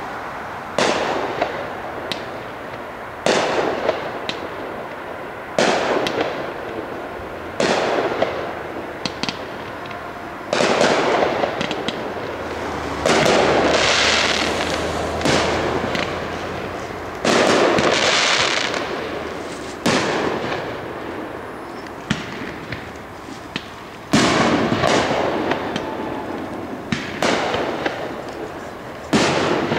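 Fireworks display: shells bursting one after another, about one every two to three seconds, each sharp report fading out in a rumbling echo. A few bursts trail off in a longer hiss.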